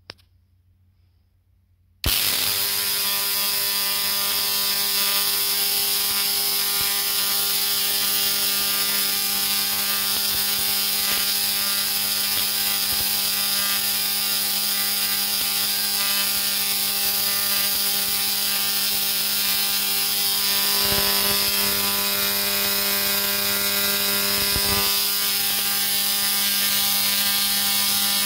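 Spark-gap Tesla coil firing, with a loud, steady, harsh buzz from its spark streamers arcing off the toroid. It starts suddenly about two seconds in, after a small click.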